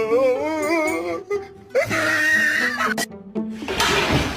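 Music with a wavering, wailing pitched voice in the first second and a held note in the middle, giving way to a loud hissing noise near the end.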